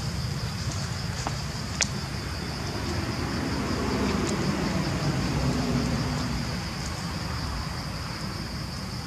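Outdoor ambience: a steady high-pitched drone of insects over a low rumble that swells around the middle, with one sharp click about two seconds in.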